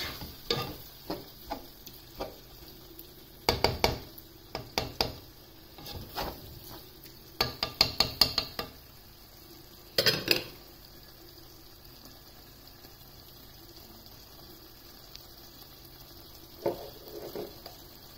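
Plastic slotted turner stirring minced beef and gravy in a non-stick pot, knocking and scraping against the pan in quick groups of strokes for about ten seconds. After that the stirring stops and the mince simmers with a faint sizzle, with a few light knocks near the end.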